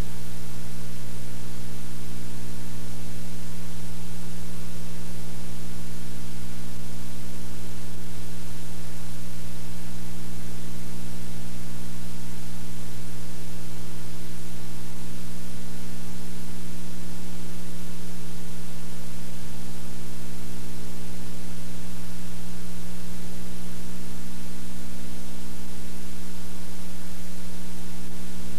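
Steady electrical mains hum with a stack of overtones under a constant loud hiss: noise on the recording's audio line or tape, not sound from the scene.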